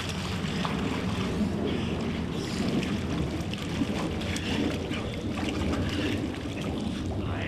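Pool water splashing and churning as a man and a large dog grapple chest to chest, with scattered short splashes over a steady low rumble.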